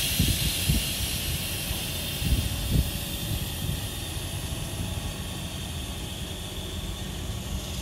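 NSW TrainLink V-set double-deck electric train moving off from the platform. A loud hiss of air, as from the brakes releasing, starts suddenly and slowly fades, over a low rumble with a few low thumps in the first few seconds.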